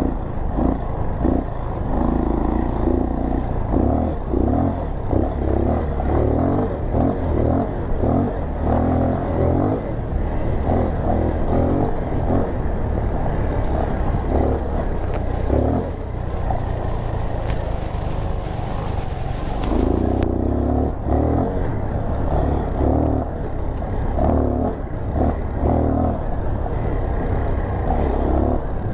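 Four-stroke dirt bike engine running under a varying throttle, its revs rising and falling over a bumpy sand trail, with wind noise on the microphone.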